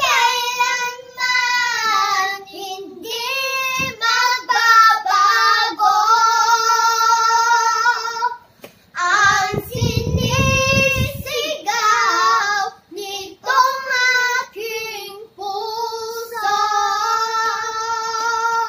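Young girls singing unaccompanied in high child voices, with long held notes. They break off briefly about halfway, then carry on.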